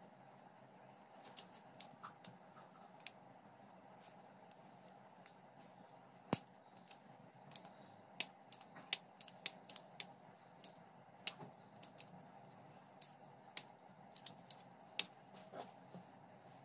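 Irregular sharp plastic clicks and taps as a replacement switch is fitted into a Bosch angle grinder's plastic motor housing, with one louder snap about six seconds in.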